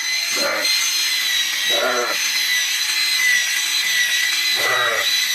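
Electric animal shearing clipper running steadily, a constant high motor whine over hiss. Three short voice-like calls sound over it.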